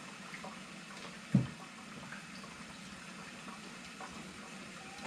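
Faint trickling and gurgling of warm water being pushed slowly from a syringe through a tube into a refrigerator's frozen water line to thaw it, with small scattered ticks. One short dull thump about a second and a half in.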